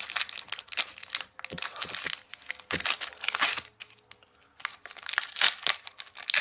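Foil booster-pack wrapper crinkling and tearing as it is handled and opened, in irregular crackly bursts with a short pause in the middle.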